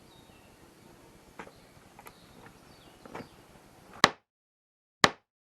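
Faint background with a few light knocks, then two sharp clicks about a second apart, each cut off into dead silence.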